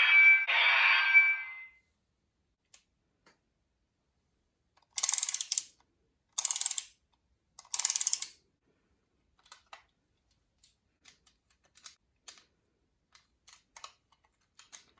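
Folded paper toy being handled: a loud rustle in the first two seconds, three short crisp paper rustles about five to eight seconds in, then scattered light clicks of paper pieces.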